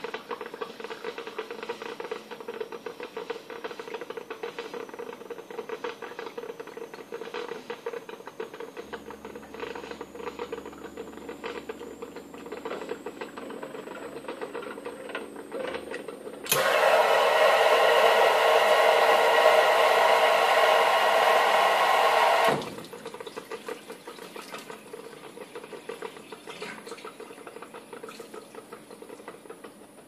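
Homemade automated coffee machine running through its brew cycle: a steady mechanical rattle and hum with a faint high whine that slowly rises, then a loud rushing noise for about six seconds past the middle before the rattle and hum return.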